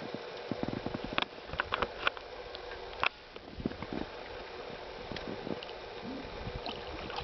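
Water sloshing and splashing beside a small boat, with scattered light knocks and clicks of handling, one sharper click about three seconds in.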